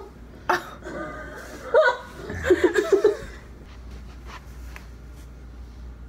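A person laughing in a quick run of short bursts about two and a half seconds in, after a sharp gasp-like vocal sound.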